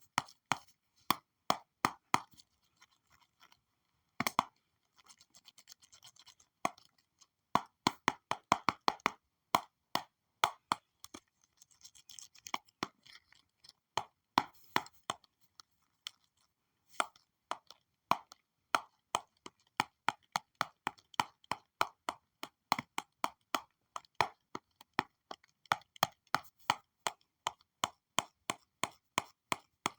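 Stylus tapping and scratching on a digital drawing tablet: sharp clicks in irregular runs of a few a second, with faint scratchy strokes between and brief pauses.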